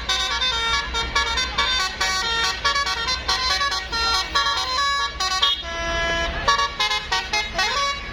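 Bus telolet horn of the Basuri type, a multi-trumpet musical air horn, playing a fast melody of short changing notes. Near the end the notes slide upward in a rising glide.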